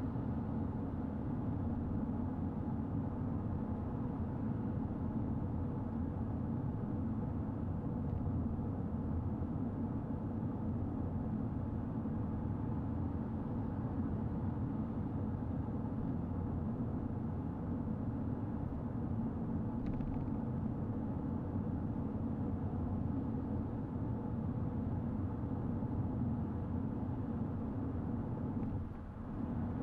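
Steady road and engine noise of a car driving along, a low rumble with a faint hum over it; it dips briefly near the end.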